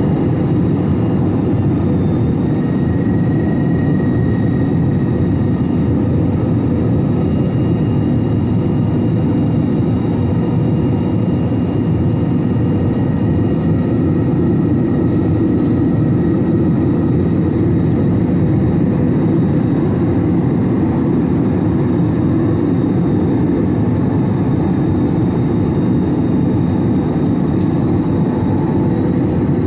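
Steady jet-airliner cabin noise from an Airbus A321 in flight: an even, deep rumble of its CFM56 engines and the airflow, with a faint high whine over it that does not change.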